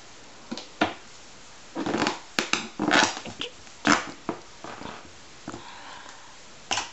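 A balloon being squeezed, rubbed and mouthed by a baby's hands: an irregular string of short rubbery squeaks and scrapes, loudest about three and four seconds in.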